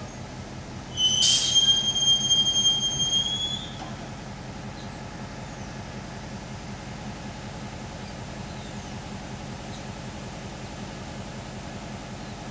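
General Motors G-22 diesel locomotive rolling slowly with its engine running low. About a second in, a high, steady metallic wheel squeal lasts about two and a half seconds, rising slightly in pitch just before it stops.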